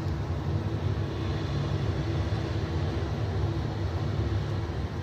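Rooftop air-conditioning units running with a loud, steady low drone and hum under a broad hiss, a faint steady tone sitting above the hum.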